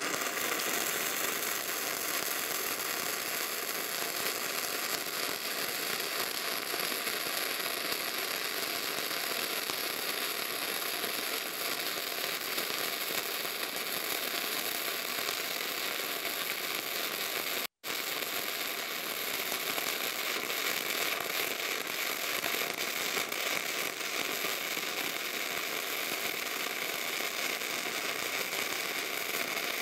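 Gasless flux-core wire-feed welder's arc crackling and sputtering steadily as it runs a bead on thick steel plate at about two-thirds output. The sound cuts out for an instant about eighteen seconds in, then carries on.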